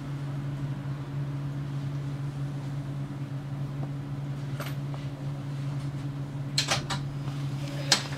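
Tram standing at rest with its onboard equipment humming steadily. A click about halfway through, a quick run of sharp clicks and knocks near the end, and one louder click just before it ends.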